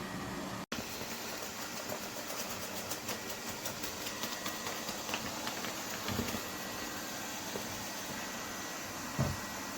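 Lefant M210 Pro robot vacuum running: the steady whir of its suction fan and brushes with a faint high whine, and a couple of low thumps about six and nine seconds in.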